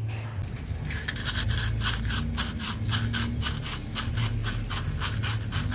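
Gloved hand rubbing rust off a shock-absorber mounting stud in quick back-and-forth strokes, about four a second. The stud is being cleaned of rust before grease goes on.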